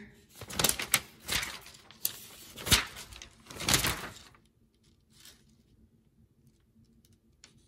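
Paper rustling and being handled: about six short rustles and bumps in the first four seconds, then only faint room tone.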